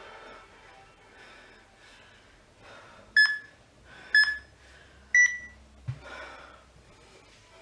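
Three short electronic countdown beeps about a second apart, the third a little higher in pitch: an interval timer signalling the end of a work interval.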